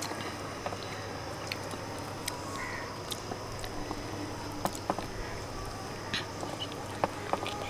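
Someone eating: scattered small clicks and smacks of chewing, over a steady background hum, with a couple of brief faint calls about two and a half seconds in.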